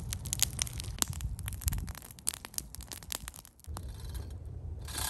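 Campfire crackling and popping with sharp snaps as wood is laid on, thinning out after about two seconds. About three and a half seconds in, a steady low rushing noise with a hiss takes over.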